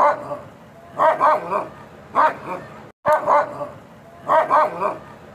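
A small dog barking in short bursts of quick, high yaps, about once a second.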